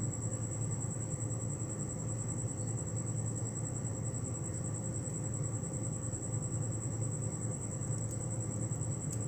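Steady low background hum with a constant high-pitched whine, and a couple of faint metallic clicks near the end as split-ring pliers work a steel split ring on a fishing lure's treble hook.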